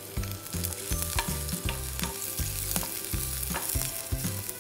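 Chopped garlic sizzling in olive oil in a non-stick frying pan while a wooden spatula stirs it, scraping and tapping the pan about half a dozen times.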